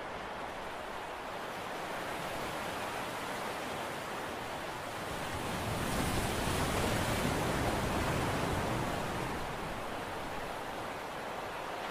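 Steady rushing noise of wind and sea water, without any clear engine tone. It swells louder for a few seconds around the middle, then settles back.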